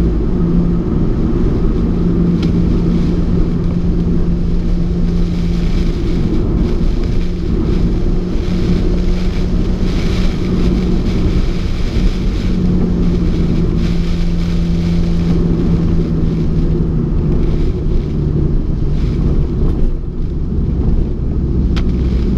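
Alfa Romeo 4C's turbocharged four-cylinder engine running at a steady pace on the road, with a continuous hiss of tyres and spray from the wet surface.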